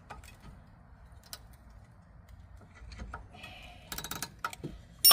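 Metal pry tool clicking and rattling against a brake caliper and pads while the caliper piston is pushed back, ending in one sharp metallic clank that rings.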